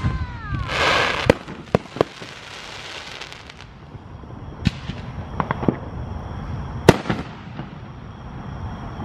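Aerial fireworks shells bursting overhead: a run of sharp bangs, the loudest about seven seconds in, with a short hissing rush about a second in.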